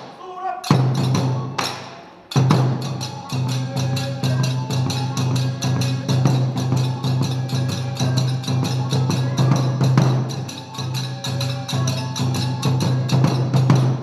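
Kagura music: percussion with sharp, wood-block-like strikes over a steady low drone, in a fast steady beat. It breaks off briefly twice near the start, then runs on without a pause.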